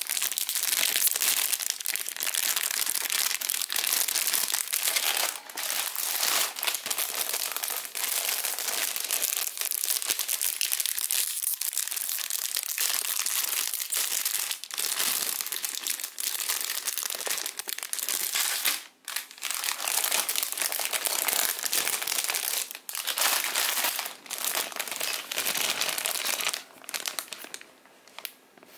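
Clear plastic bags holding model-kit runners crinkling as they are handled and opened, an irregular crackle that drops out briefly about two-thirds through and goes quieter near the end.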